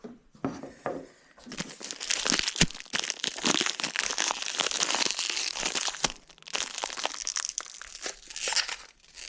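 Tough plastic packaging of a new oil filter being crinkled and torn open: a long run of crackling and rustling that starts about a second and a half in, with short pauses.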